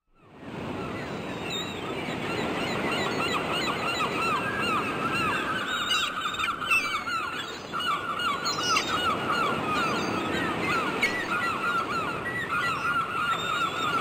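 A flock of waterbirds calling: many short overlapping calls, one after another, over a steady background noise. It fades in at the start.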